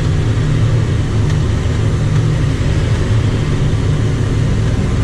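A John Deere 7630 tractor's six-cylinder diesel engine running steadily under load, heard from inside the cab while pulling a potato planter down the field. It is a constant, loud, low drone.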